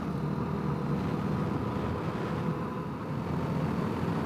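Honda CRF250L's single-cylinder engine running steadily while the motorcycle is ridden along the road.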